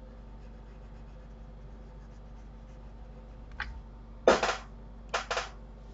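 A steady low electrical hum, with a faint click a little past halfway. A loud hissy burst follows, then two shorter ones close together near the end.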